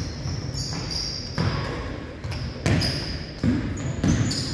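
A basketball bouncing on a gym court, about six irregular thuds, with short high squeaks of sneakers on the hardwood between them.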